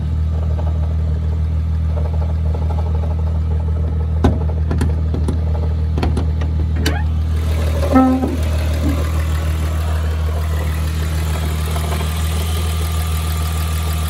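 Mk3 Jetta's 12-valve VR6 engine idling steadily, with a few sharp clicks or knocks around the middle. The owner says the engine is making a clunking noise inside, although it otherwise sounds healthy.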